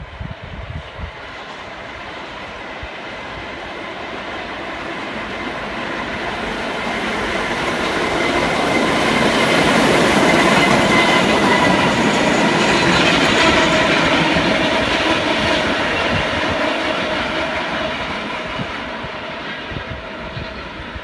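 A train of BMT BU gate cars, wooden elevated subway cars, approaching, passing at speed and receding. It swells to its loudest about halfway through as the cars go by, with a steady traction-motor whine over the wheel and rail noise, then fades.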